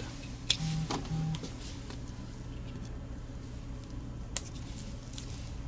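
Two short, low electronic beeps about half a second apart, a little under a second in, over a steady low electrical hum. A few light clicks of small parts being handled.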